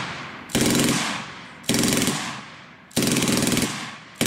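German MG42 machine gun firing four short bursts a little over a second apart, each a rapid rip of shots at the gun's very high rate of fire, about 1,200 rounds a minute, lasting about half a second and trailing off in a fading echo.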